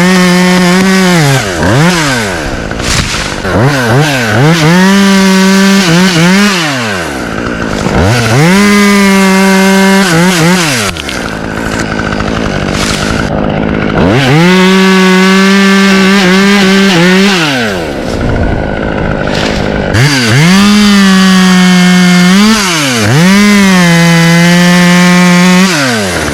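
Two-stroke chainsaw cutting maple wood at full throttle, its engine dropping off toward idle between cuts and revving back up, about five times over.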